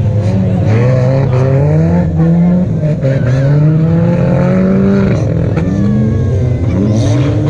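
Several banger-racing cars' engines revving and easing off as they race round a dirt oval, their pitches rising and falling over one another.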